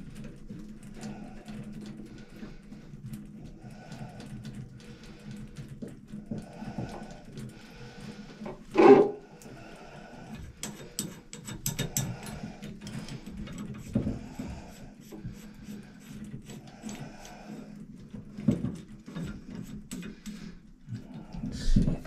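Small metal clicks and scraping as a cartridge puller is worked on a Moen shower valve cartridge, over a steady low hum. About nine seconds in, one short vocal sound is the loudest thing heard.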